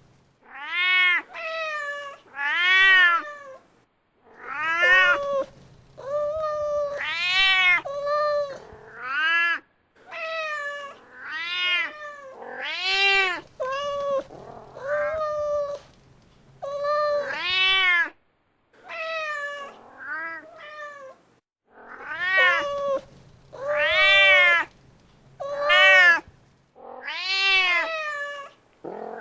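Mother cat calling for her kitten: repeated meows, one every second or two, each call rising and then falling in pitch. A faint low rumble sits under some of the calls.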